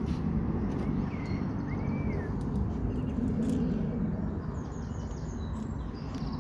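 Outdoor farm ambience: a steady low rumble with birds chirping, a couple of short rising-and-falling calls about a second in and higher, thinner chirps in the second half.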